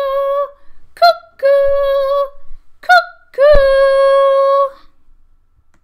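A woman's voice singing 'cuckoo' like a cuckoo clock striking the hour: each call is a short higher note dropping to a long held one. The end of one call is followed by two more, the last held longest. A low thump comes as the last call begins.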